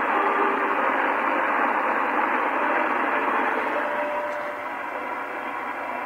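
Shortwave receiver in upper-sideband mode tuned to Bangkok Meteorological Radio on 8743 kHz, playing steady hiss and static through a loudspeaker, with faint short musical tones of the station's tune at different pitches coming out of the noise. The signal is weak.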